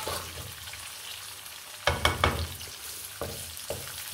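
Sliced onions sizzling in hot oil in a metal kadai, with a wooden spatula scraping and knocking against the pan as it stirs them, a cluster of knocks about two seconds in and two more near the end.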